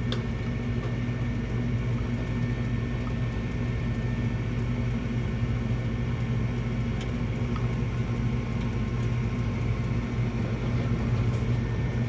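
Gas furnace running with its burners lit: a steady hum from the furnace's motors and burner flame, with a few faint clicks.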